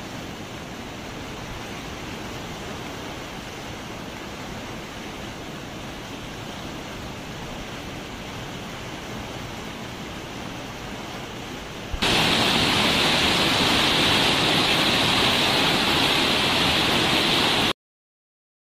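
Muddy floodwater of an overflowing stream rushing steadily. About two-thirds of the way through it suddenly gets louder and brighter with a closer view of the churning torrent, then cuts off abruptly near the end.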